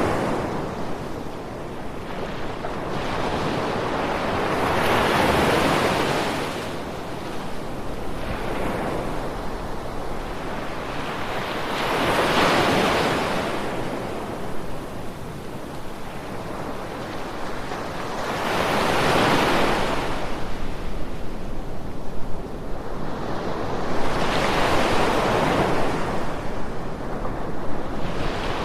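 Sea waves washing in, each swelling up and falling away again, about every six or seven seconds.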